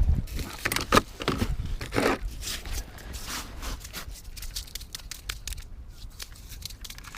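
Scraping and crinkling handling noise, with several sharp clicks in the first two seconds, then fainter rustling.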